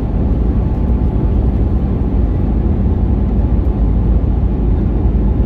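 Steady low rumble of aircraft cabin noise in flight: engine and airflow noise heard from inside the cabin.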